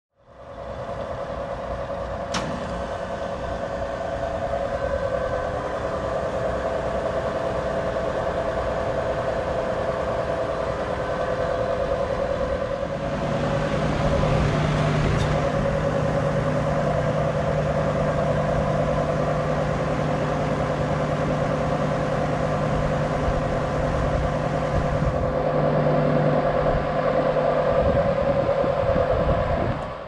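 Trane XB Series central air conditioner condensing unit starting up about 13 s in, its compressor hum and fan rush coming on together; the fan rush drops away about 25 s in and the hum cuts off a few seconds later as the unit shuts down. Through it all runs the steady whine of a Mitsubishi mini-split outdoor unit, and a sharp click comes about 2 s in.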